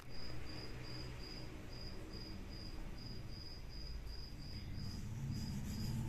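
A cricket chirping steadily, just under three short, high chirps a second, over a low hum, with some rustling near the end.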